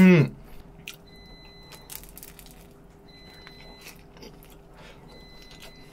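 Close-miked chewing of crusty ciabatta bread topped with saucy chicken: scattered crunches and soft bites. A short hummed 'mm' comes at the very start.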